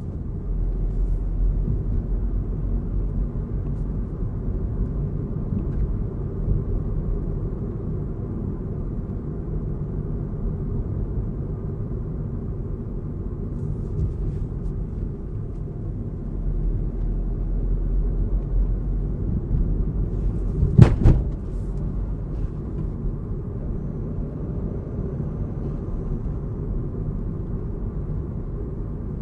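Inside a 2023 Suzuki Swift with a 1.2-litre petrol engine being driven: steady engine and road rumble in the cabin, with one sharp thump about two-thirds of the way through.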